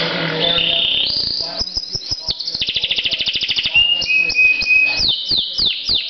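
Domestic canary singing a varied song: a very fast trill through the middle, then a run of quick downward-sliding notes toward the end.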